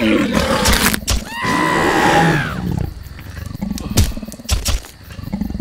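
Tyrannosaurus rex roar sound effect: one long roar starting about a second in that falls away at its end, followed by a few sharp knocks.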